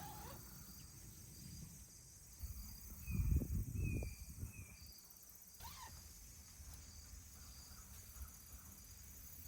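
Insects chirping, a faint short high chirp repeating about every half second, with a brief low rumble about three seconds in.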